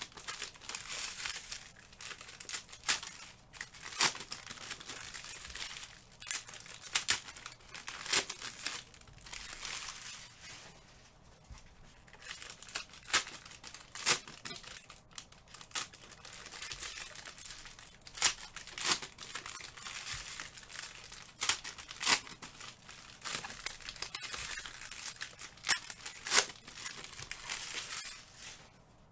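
Packaging being handled, crinkling and tearing in an irregular run of sharp crackles that eases off for a couple of seconds in the middle.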